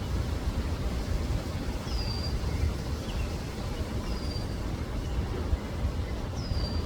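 A bird repeats a short, high, downward-sliding whistle about every two seconds, three times, over a steady low rumble.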